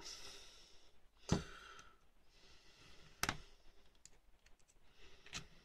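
Small, sharp clicks of a screwdriver tip against a Classic Mini rear brake wheel cylinder as it is worked around the rim to seat the rubber dust boot: three clear clicks a couple of seconds apart, with a few fainter ticks between.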